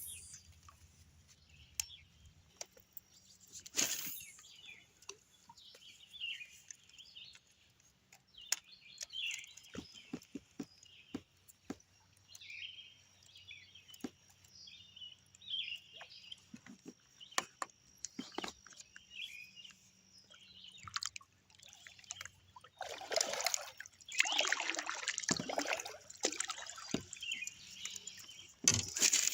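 Birds singing and chirping, with scattered small clicks and knocks, and a louder stretch of water splashing and sloshing for a few seconds about three quarters of the way through.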